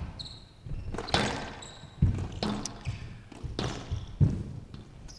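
Squash rally on a glass court: several sharp hits of the ball on rackets and walls, about one a second, with short shoe squeaks on the court floor.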